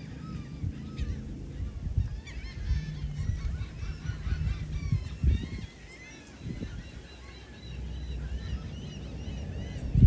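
A flock of seagulls calling, many short overlapping cries that grow thick from about two seconds in, over a low rumble.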